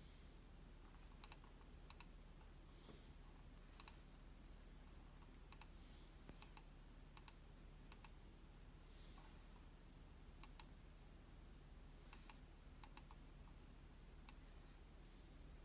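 Near silence with faint, sharp clicks at irregular intervals, some in quick pairs.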